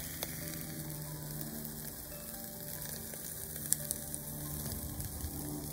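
Beef ribs sizzling on a wire grill over charcoal, a steady hiss with a few sharp pops, while soft music plays underneath.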